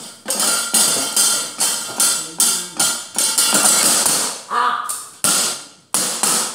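A wayang dalang's keprak, metal plates on the wooden puppet chest struck with the cempala knocker, in a fast run of sharp metallic clanks, about two to three a second, thinning out near the end.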